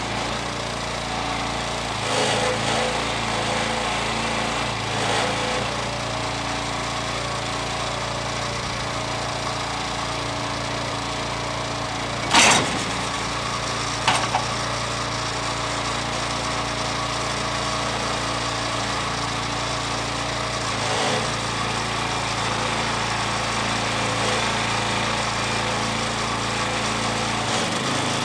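Timberking B-20 portable bandsaw mill's engine running steadily. A heavy thump about twelve seconds in and a lighter knock a couple of seconds later come as a white oak log rolls onto the mill's steel bed.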